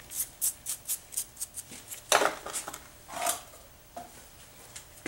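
Damp crushed borosilicate glass and clay mix being pressed and scraped smooth in a wooden tile mold: a run of short gritty scrapes and clicks, loudest about two and three seconds in, then dying away.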